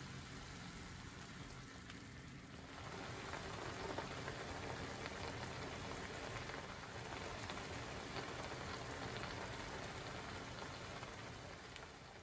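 Oyakodon broth of soy sauce, mirin and dashi simmering in a frying pan around chicken and setting egg: a steady crackling bubble and hiss that gets louder about three seconds in.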